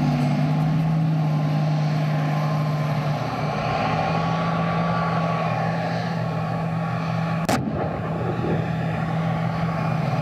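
Steady rumbling noise of military firing-range footage, with a constant low hum underneath and one sharp crack about seven and a half seconds in.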